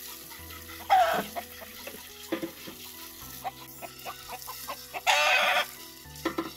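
A rooster gives one short call with a falling pitch about a second in. About five seconds in comes a brief, loud splash of tap water over a plastic cutting board being rinsed under an outdoor faucet.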